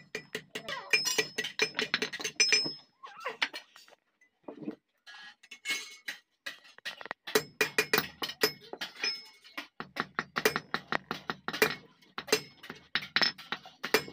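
Hand hammer striking hot iron on an anvil in quick repeated blows, several a second, with a metallic ring. The blows pause briefly about four seconds in, then resume.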